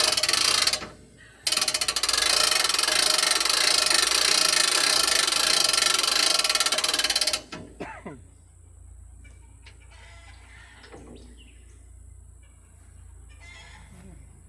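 Aerosol lubricant sprayed onto sawmill parts: a loud steady hiss with a short break about a second in, then one long burst that stops abruptly around seven seconds in. After it, only faint clicks of handling.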